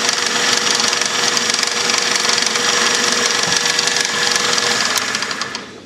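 Small milling machine's spindle and drive running steadily, spinning an edge finder, with a steady whine over the motor noise. The sound falls away near the end.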